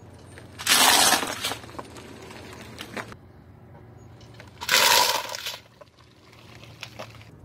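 Car tyre rolling over a plastic plate of rotini pasta, crushing it with a loud crunching and crackling. There are two such bursts about four seconds apart, each lasting about a second, with a few small cracks between them.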